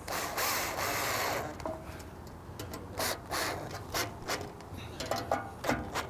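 Cordless drill-driver with a socket spinning a nut onto a bracket bolt for about a second and a half, followed by a series of scattered sharp clicks.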